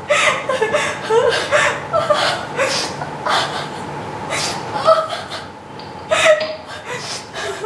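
A woman's non-verbal vocal outbursts: short, breathy, broken laughing sounds repeated in bursts, with catches of breath between them.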